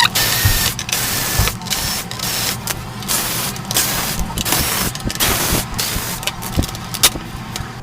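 Electric screwdriver whirring in many short runs with brief pauses between, backing out the screws of a flat-screen TV's plastic back cover.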